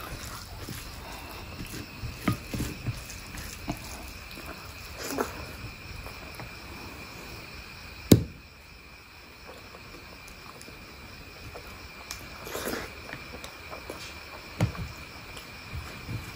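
Close-miked eating of mutton curry and rice: scattered short wet mouth and chewing sounds, with one sharp click about eight seconds in. A steady high-pitched tone runs underneath.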